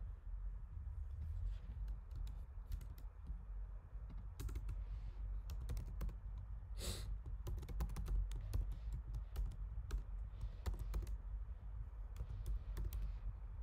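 Typing on a computer keyboard: irregular quick key clicks, with one longer, louder sound about seven seconds in, over a low steady hum.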